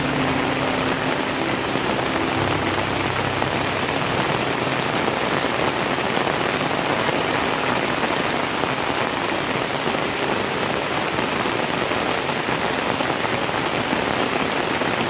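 Steady rain falling, an even, dense hiss of drops that holds at one level throughout, with background music fading out in the first few seconds.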